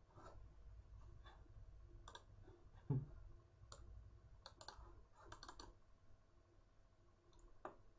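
Faint, scattered clicks of a computer mouse, with several in quick succession about five seconds in, and one louder low thump about three seconds in.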